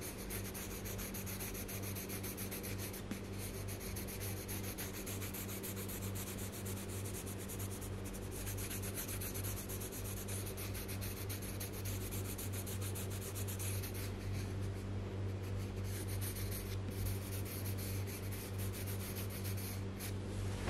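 Colored pencil scratching on paper in rapid back-and-forth shading strokes, with a steady low hum underneath.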